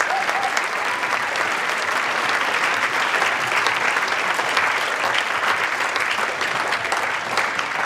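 Large audience clapping and cheering, a dense steady applause of many hands.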